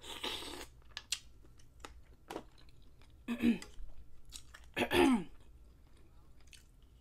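Close-miked eating of boiled mussels: a brief wet slurp at the start, then chewing with scattered small clicks of mussel shells against each other and the glass dish. Two louder short sounds come about three and a half and five seconds in.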